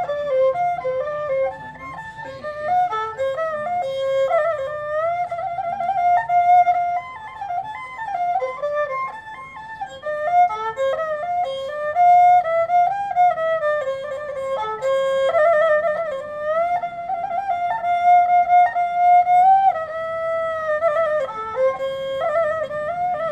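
Tro khmer, the Khmer bowed spike fiddle, playing a solo traditional melody: a single line of held and ornamented notes that slide up and down between pitches.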